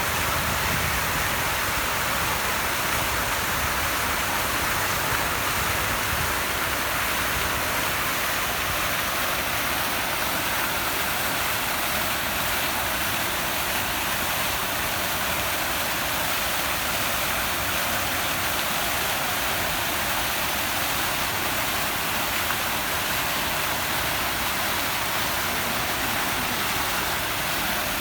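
Steady rushing water, an even hiss that holds without change.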